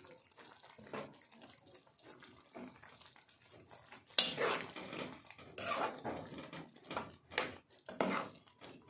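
Faint kitchen sounds of water and utensils: a low wash at first, then from about four seconds in a run of irregular splashes and clinks.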